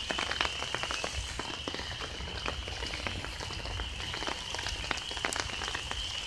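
A distant chorus of frogs calling, a steady high-pitched din, with raindrops tapping on an umbrella throughout.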